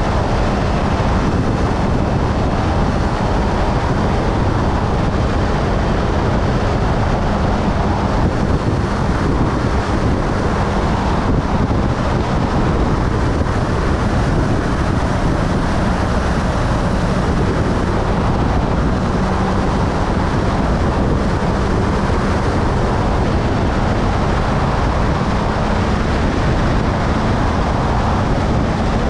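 Steady wind rush buffeting the microphone of a motorcycle cruising at highway speed, with the engine's even drone underneath and no change in speed.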